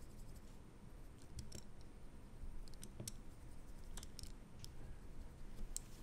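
A few faint, scattered clicks of small plastic speed-cube pieces being handled and wiped clean.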